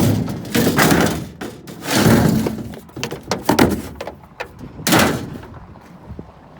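Junk and scrap clattering and crashing as it is shifted in a dumpster, in four rough bursts.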